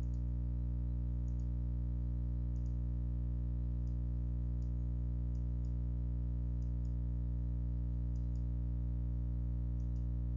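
Steady low electrical hum, with faint computer-mouse clicks about once a second, some in pairs, as the 3D view is orbited.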